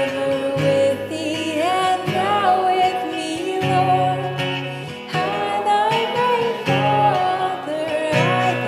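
Acoustic guitar strummed under male and female voices singing a hymn together.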